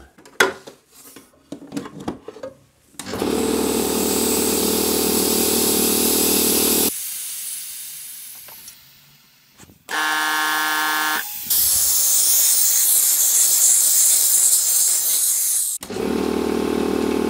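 Old belt-driven Airmaster air compressor starting about three seconds in and running steadily, then cutting off with a hiss of air that fades away. After a short humming tone comes a loud steady hiss of escaping air, which the owner puts down to a leaking drain valve, and the compressor runs again near the end.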